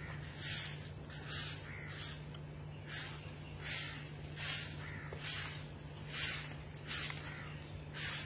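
Short-handled broom sweeping a concrete path, one brushing stroke about every 0.8 seconds, over a faint steady low hum.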